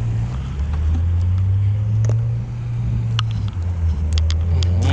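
A steady low rumble, with a few faint clicks in the second half.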